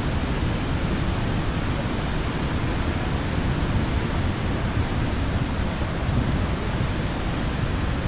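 Steady rushing of the Lower Falls of the Yellowstone River, mixed with wind buffeting the microphone in a low, uneven rumble.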